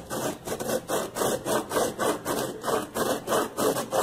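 An avocado seed being grated by hand on a flat grater, a rhythmic rasping of quick back-and-forth strokes, about three a second, as the seed is reduced to a coarse meal.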